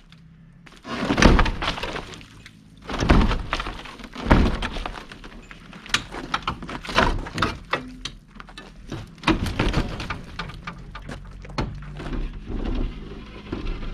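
Demolition of the RV's door frame and wall: heavy thuds and cracking as pieces are pried and broken out, with debris clattering down. Three big crashes come in the first few seconds, then a run of smaller knocks and snaps.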